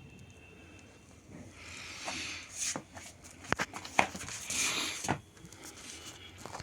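Rustling and scraping with several sharp clicks and knocks, loudest about halfway through.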